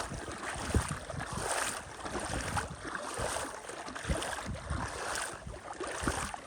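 Wind buffeting the microphone outdoors, an uneven rushing noise with irregular low thumps.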